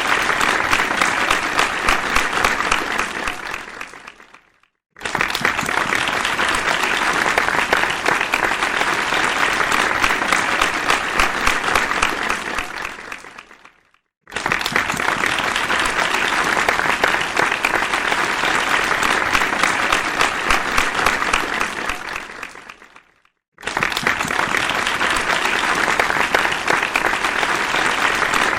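Crowd applause: dense, steady clapping from many hands. It fades out to a brief silence about four seconds in, again about fourteen seconds in and about twenty-three seconds in, and each time starts again abruptly at full strength.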